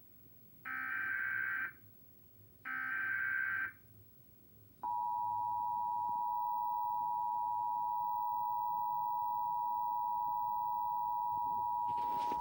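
Emergency Alert System test signal: two bursts of about a second each of buzzy, screeching digital header data, then the steady two-tone EAS attention signal held for about eight seconds.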